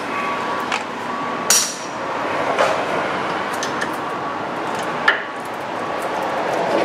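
Socket wrench working on brake caliper bolts: scattered metal clicks and clinks, the loudest a ringing clink about a second and a half in and a sharp click just after five seconds, over a steady background hiss.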